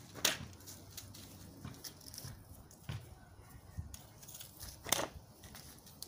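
A cheap plastic box-fan blade slammed onto the ground twice, each a sharp crack, the first just after the start and the second about five seconds in, breaking the blade into pieces. Fainter knocks and rustles come between.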